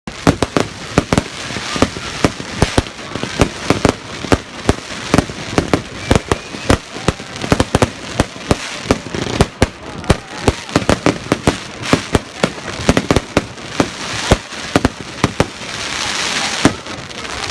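Fireworks going off in rapid succession: a dense string of sharp bangs and pops, several a second, with a rushing hiss that swells near the end.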